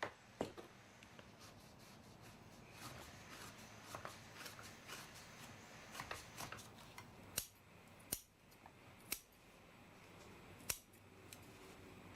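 Scissors snipping at a thick rope's end. Four sharp single cuts come a second or so apart in the second half, with quiet rustling of the cord being handled in between.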